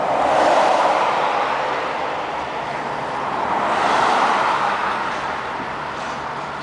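Cars passing close by on a road: one swells up and fades near the start, another about four seconds in. Beneath them is the steady low rumble of a slow freight train rolling past.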